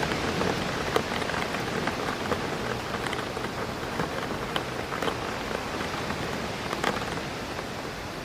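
Rain hitting a window, with wind through trees: a steady hiss of rain with scattered sharp taps of single drops striking the glass.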